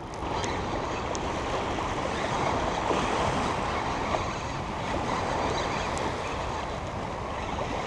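Small waves washing against the shoreline rocks, mixed with wind on the microphone: a steady rush with no clear breaks.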